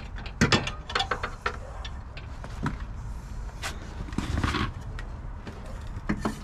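Irregular knocks and clunks as a new KYB front strut assembly is worked into the steering knuckle by hand, with a half-second scraping sound a little past four seconds.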